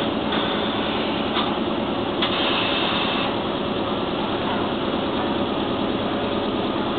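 Electric air compressor running steadily on the stationary 'Ichigo Densha' electric train, now on 1500 V supply, which the uploader notes makes it run faster. A brief higher hiss comes in about two seconds in and lasts about a second.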